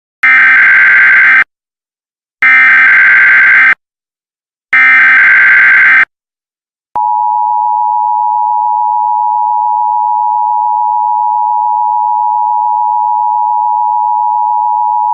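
Emergency Alert System SAME header: three short, harsh bursts of digital data tones, each a little over a second long with about a second between them. The steady two-tone EAS attention signal starts about 7 seconds in and holds unchanged.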